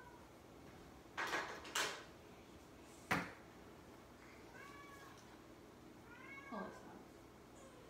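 A house cat meowing twice, short calls that rise and fall in pitch. Earlier come two brief rustling swishes and a single sharp knock, which are louder than the meows.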